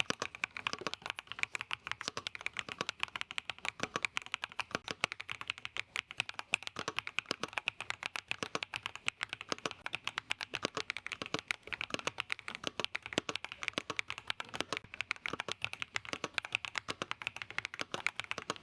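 Typing on an Ajazz AC100 mechanical keyboard, a fast, continuous run of keystrokes.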